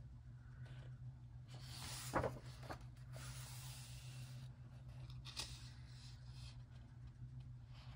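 Paper rustling as a page of a large softcover coloring book is turned, with a sharp crinkle about two seconds in, followed by softer brushing as a hand smooths the pages flat. A faint steady low hum runs underneath.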